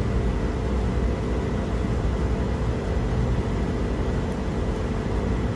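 Steady low hum and rumble of running machinery, with faint even tones under a constant noise haze.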